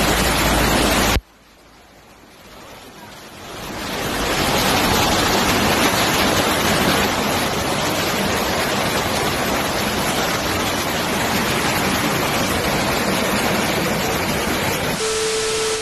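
Muddy floodwater rushing through a gully: a loud, steady rush of water. It cuts in abruptly about a second in, swells up over the next few seconds, then holds steady, with a short steady tone just before the end.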